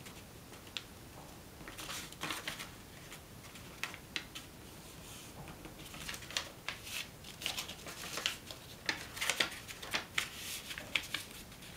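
Square sheet of origami paper rustling and crackling under the fingers as it is reverse-folded by hand and the creases pressed flat: a scatter of short, crisp crinkles, busier in the second half.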